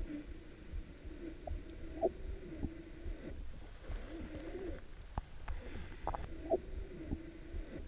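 Muffled underwater sound picked up by a camera strapped to a freediver's chest during a deep descent: a steady low hum with soft low thuds, a few sharp clicks, and short gliding tones about two seconds apart.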